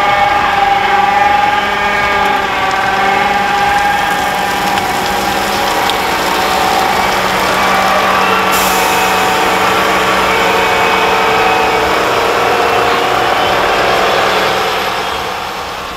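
Heavy harvest machinery working: large diesel engines running steadily with a drawn-out mechanical whine, the pitch shifting a little around the middle, easing off near the end.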